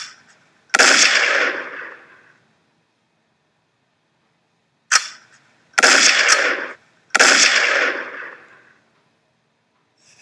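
Pistol gunshot sound effects: a sharp crack, then a loud shot that rings out and fades over about a second and a half. A few seconds later comes another crack, then two more shots about a second apart.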